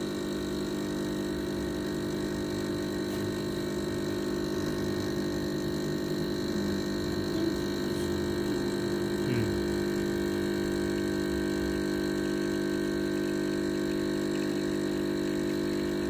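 Milesto Elaine M3 espresso machine's pump humming steadily under load, pushing water through the coffee puck while a shot is pulled.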